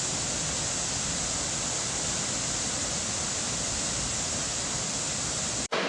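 Waterfall, a steady rushing of falling water. Near the end it drops out for an instant, and a different, fuller water sound takes over.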